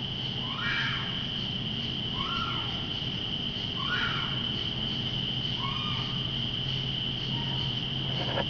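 An unidentified animal calls again and again in the night woods: about five short rising calls, one every second and a half or so. Behind them runs a steady high drone of insects and a low hum.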